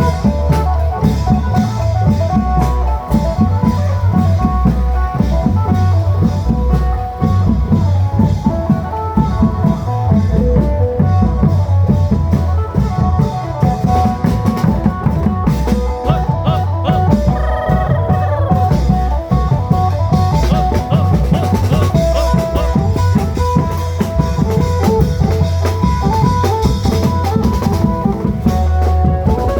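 Isan klong yao music: long drums and a steady, heavy bass-drum beat under a lively phin (Isan lute) melody in an old-style pattern given a modern arrangement.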